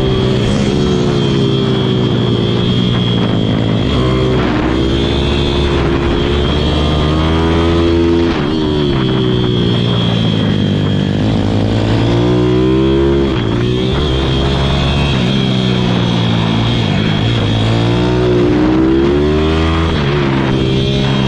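Pit bike's single-cylinder engine under way, revving up and down through the gears and corners: the pitch climbs on each run and falls away sharply as the throttle closes, about three times. A steady high whine sits over the engine.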